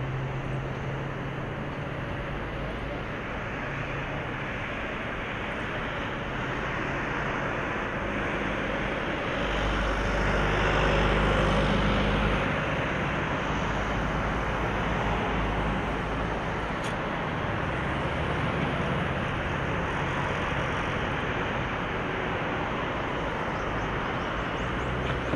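Boeing 787-8's twin turbofan engines at take-off thrust: a steady rushing noise with a deep rumble that grows loudest about ten to twelve seconds in as the jet lifts off, then eases slowly as it climbs away.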